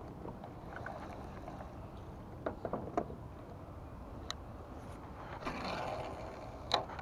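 Light clicks and handling noise from a spinning rod and reel over a steady low rumble of wind and water around a small boat. A short hiss comes about five and a half seconds in, followed by one sharp click near the end.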